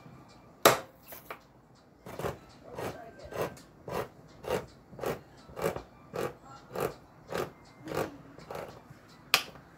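A handheld manual can opener cranked around the rim of a large tin can, its cutting wheel biting through the lid in short crunchy strokes about twice a second. There is a sharp click near the start and another near the end.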